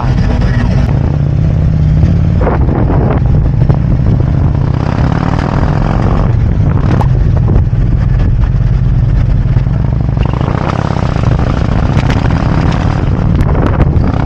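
Harley-Davidson Road Glide's V-twin engine running on the move, a steady low rumble with wind and road noise rushing over it.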